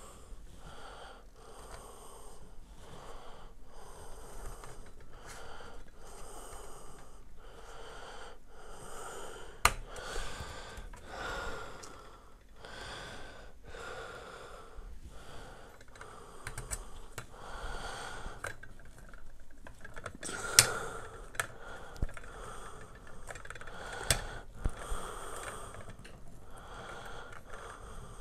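Hand-assembly noises from a metal headset stand: soft rustles about once a second, with a few sharp clicks of parts and a small screwdriver against the metal, once about ten seconds in and several times past the twenty-second mark.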